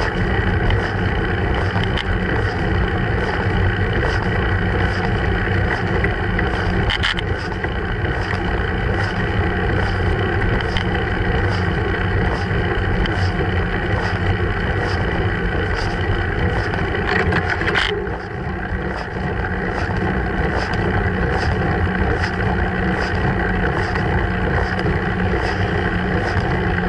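Steady wind and road rumble picked up by a bicycle-mounted action camera while riding uphill, with a faint ticking about twice a second and a couple of brief knocks.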